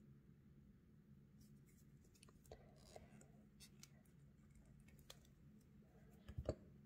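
Near silence: faint handling noises of fingers pressing a polymer clay leaf inside a silicone leaf veiner, a few soft clicks and scratches, with two brief knocks near the end, over a faint low hum.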